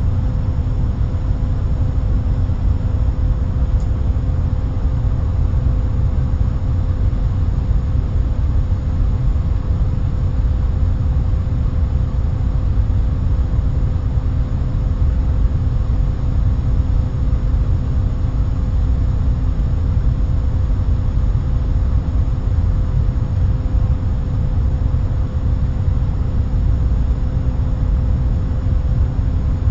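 Airliner cabin noise: a steady low drone of engines and rushing air, with a faint steady hum running through it.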